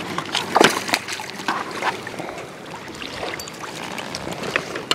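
Hooked fish splashing and thrashing at the water surface as it is played in close, with irregular sharp splashes strongest in the first couple of seconds, then lapping water as a landing net is brought in.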